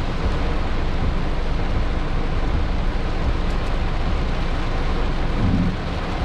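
Heavy rain drumming on a car's roof and windshield, heard from inside the car as a steady, dense hiss.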